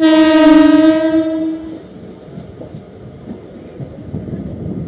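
Train horn sounding one loud blast that starts suddenly and lasts about a second and a half, over the steady rumble and clatter of a train running on the tracks, heard from aboard the moving train.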